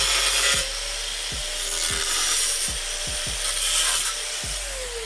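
Power tool cutting through a sheet-metal heat shield: a loud grinding rasp that comes and goes in stretches of about a second, with the motor's pitch falling as it winds down near the end.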